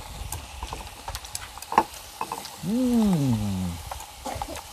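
Pork and fish sizzling on a tabletop grill pan, with chopsticks clicking against the pan and the food now and then. Just past halfway, a person's voice makes one drawn-out sound, falling in pitch, over the sizzle.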